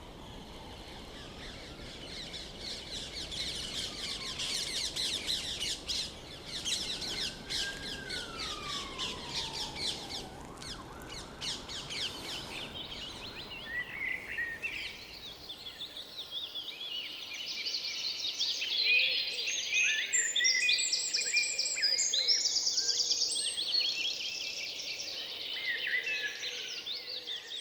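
Several songbirds chirping and trilling over a hiss of outdoor background noise. About sixteen seconds in, the background drops away and a louder, clearer run of varied chirps and trills carries on.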